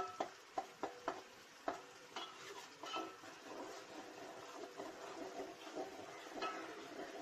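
Spoon or spatula scraping and knocking against a pan while stirring onion paste frying in oil, with a steady sizzle underneath. The strokes come several times a second for the first three seconds, then ease to mostly sizzling with one more knock near the end. The paste is being cooked until its raw onion smell is gone.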